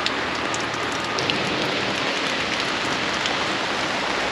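Heavy rain falling steadily: a dense, even hiss with scattered individual drops striking close by.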